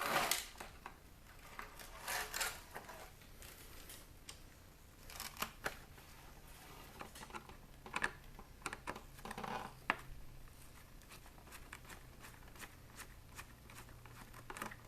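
Scattered small clicks, taps and rattles of plastic and metal parts being handled as a CD changer is taken apart.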